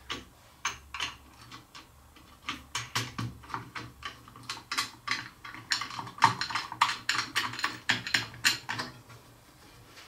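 Irregular small clicks and light taps of hardware being handled as thumb-screw jig knobs are spun down on quarter-20 bolts to clamp the blade guards onto the finger-joint jig. The clicking is sparse at first, grows busy after a couple of seconds and stops about a second before the end.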